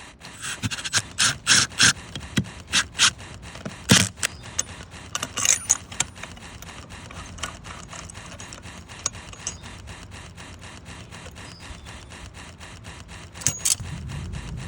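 A run of short scraping and rubbing strokes, loud and irregular for the first several seconds, then giving way to faint, closely spaced ticking.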